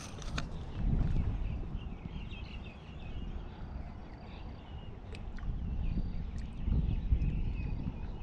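Wind buffeting the microphone in gusts, strongest about a second in and again near the end, with birds chirping faintly in the background.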